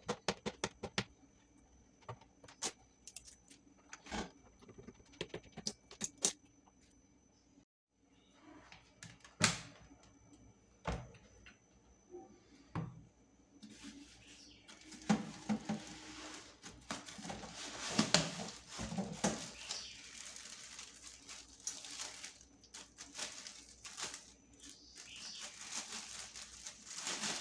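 Clicks and knocks as an air fryer oven's door and parts are handled. From about halfway, plastic bags crinkle and crackle steadily as the wire racks inside them are pulled out.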